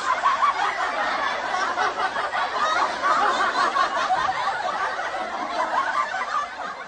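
Several people laughing and chuckling together, the laughter continuous and slowly fading toward the end.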